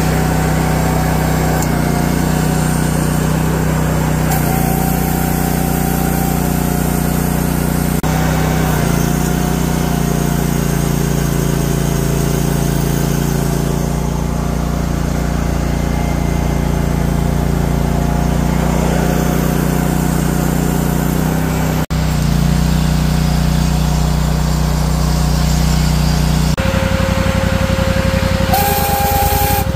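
Tracked walk-behind trencher running, its small gas engine held at a steady high speed while it digs, with a brief break about two-thirds of the way through and a steady whine joining near the end.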